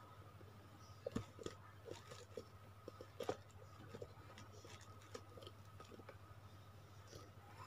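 Faint, scattered crinkles and clicks of a bubble-wrapped parcel being handled and opened, the loudest a little over a second in and at about three seconds, over a steady low hum.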